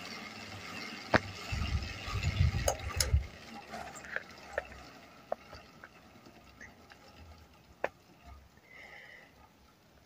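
Gear-driven ceiling fan running, a 3D-printed replica of the Panama gear-driven fan: a steady whir from its plastic gear drive, with scattered clicks where the gear teeth collide. Low rumbling in the first few seconds, and the whir grows fainter as it goes on.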